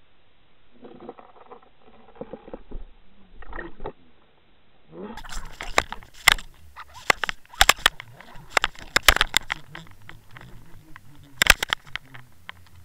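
Heard through an underwater camera: a faint hum for the first few seconds, then, about five seconds in, water rushing with many sharp knocks and rattles as a hooked northern pike thrashes with the swimbait near the camera.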